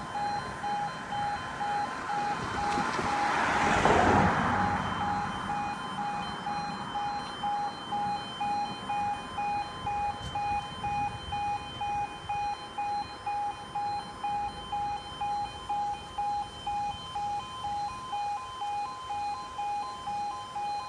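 Level crossing warning alarm sounding in a steady pulse, about two beeps a second, warning road users that a train is approaching. A passing road vehicle swells up under it and is loudest about four seconds in.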